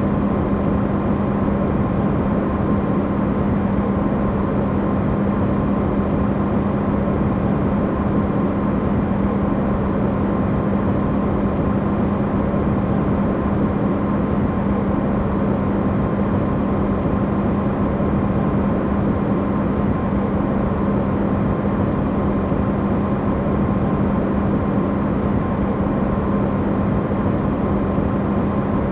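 Electrolux refrigerator running, its sound amplified into white noise: a steady hum over an even rushing noise that does not change.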